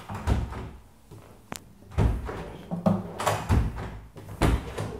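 White MDF wardrobe drawers being pushed shut and pressed to release their push-to-open (touch-latch) fittings: a series of knocks and thuds, with a sharp click about one and a half seconds in.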